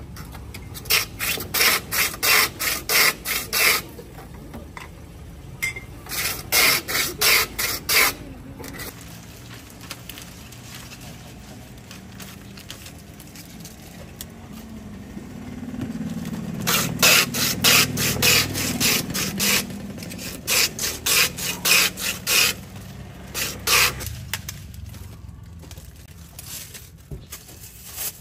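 Hand-held ice shaver pushed back and forth over a block of ice, scraping off shaved ice in quick strokes, about two to three a second, in four separate runs. A low rumble rises and fades in the middle.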